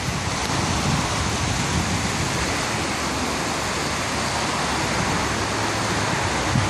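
Floodwater of a swollen river rushing and churning in a steady wash of noise.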